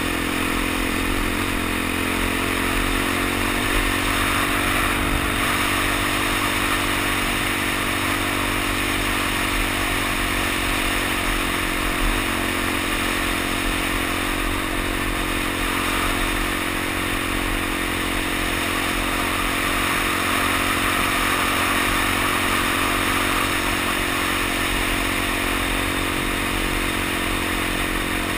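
Suzuki DR-Z dual-sport motorcycle's single-cylinder four-stroke engine running at a steady cruise, with a steady rush of wind and tyre noise over gravel.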